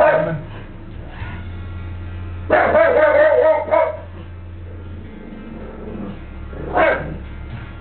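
Pug barking at a can of compressed air: a quick run of barks lasting about a second and a half, then one short bark near the end.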